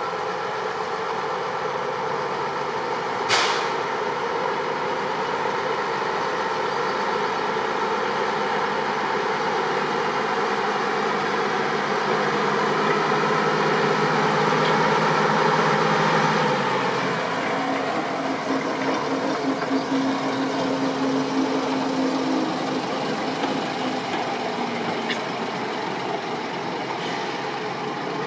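Diesel engine of an 0-6-0 diesel-electric shunting locomotive running as it drives up and past, loudest about halfway through, with its engine note changing soon after as it moves away. A single sharp knock about three seconds in.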